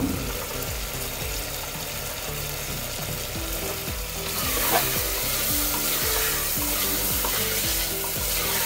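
Potato chunks and keema sizzling in hot oil in an aluminium pressure cooker, stirred with a spatula; the sizzle grows louder about four seconds in.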